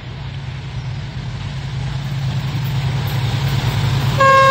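ZCU-20 diesel-electric locomotive approaching, its engine rumble steadily growing louder. Near the end it sounds a loud, steady horn blast.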